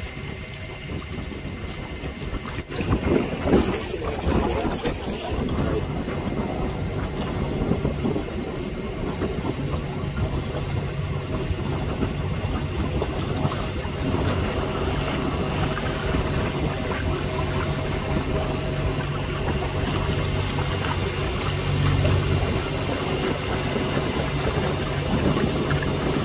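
Boat engine running steadily under way on a lake, a low even hum over water and wind noise. Wind buffets the microphone about three seconds in.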